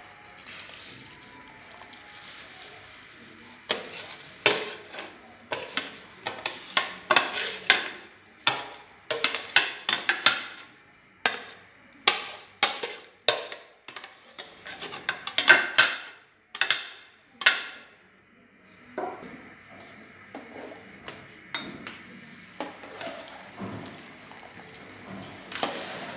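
A metal slotted spoon scraping and knocking against a serving dish and the rim of an aluminium pot as rice is pushed into boiling water, a dense run of sharp knocks from about 4 s to 18 s. Quieter stirring in the pot follows, over the steady hiss and bubble of the boiling liquid.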